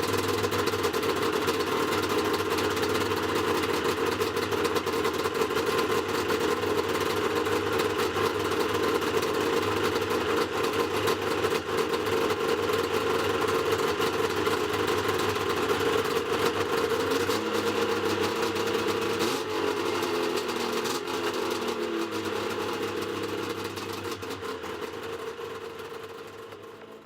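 Yamaha Mountain Max 700 snowmobile's three-cylinder two-stroke engine idling steadily through SLP triple pipes. About two-thirds through, its note shifts and drops slightly, and the sound fades away near the end.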